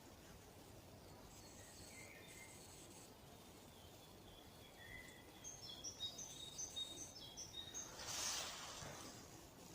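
Songbirds singing faintly in a spring forest, with a run of quick high chirping notes about halfway through. Near the end comes a brief burst of noise.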